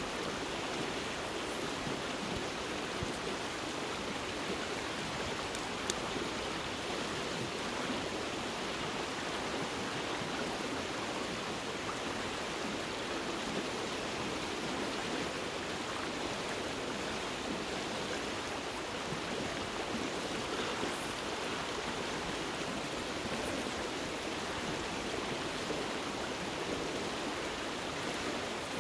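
Fast river water rushing steadily over stones, the river running high. A brief click about six seconds in.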